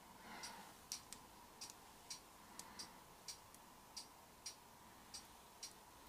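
Faint, slightly irregular ticks, about one to two a second, of fluid acrylic paint dripping off the edge of a tilted canvas onto plastic sheeting.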